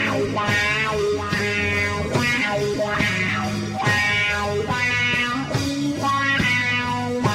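Live psychedelic rock band playing: electric guitar holding long ringing notes over a steady low bass line, with regular strokes about once a second.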